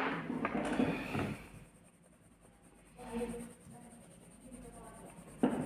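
Wooden coloured pencils clicking and rattling against one another as one is picked out of a loose pile on the table, with a faint voice in the background about three seconds in.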